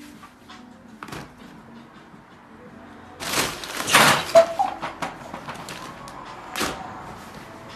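Pop-up fabric cat tunnel rustling and scraping on a wooden floor as a cat scrambles about in it. It is loudest for about a second around the middle, with a shorter burst later.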